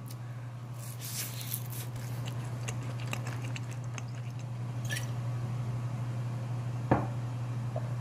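Close-miked chewing of raw goby sashimi cut with the bones in: soft wet mouth sounds with scattered faint clicks, and one sharper click about seven seconds in, over a steady low hum.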